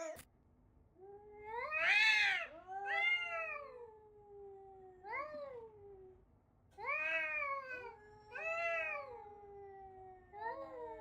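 A cat meowing over and over: about six long, drawn-out meows, each rising and then falling in pitch, the loudest about two seconds in.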